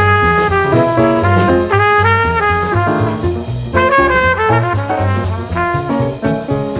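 Jazz music with brass instruments playing a melody over a low bass line.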